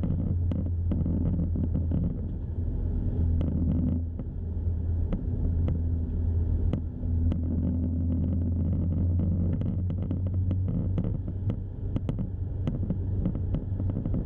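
Remapped Audi S3 driving at a steady pace: a low, even engine and road drone with many scattered sharp clicks and ticks over it. The recording is of poor quality.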